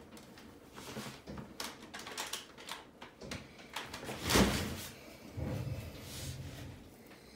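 Handling noises: scattered light clicks and rustling, with one louder thump about four and a half seconds in, as a plastic graded-coin slab is fetched and handled.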